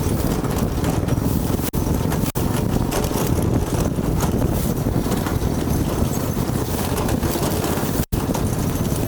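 Loud, steady rumble and rattle of a go-kart riding over rough ground, with wind buffeting the microphone. The sound cuts out briefly three times.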